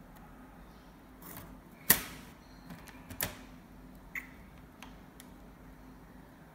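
Hard plastic clicks and knocks from a laptop's case being handled: one sharp click about two seconds in, the loudest, then a second click about a second later and a few lighter ticks.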